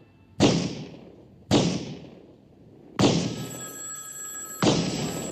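Loud bangs about every second and a half. Over the second half, a telephone bell rings once for about a second and a half, then stops suddenly.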